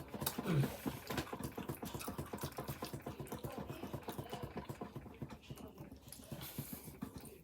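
A person chewing a mouthful of chicken sandwich close to the microphone: a quick, uneven run of small wet mouth clicks, with a short low hum from the throat about half a second in.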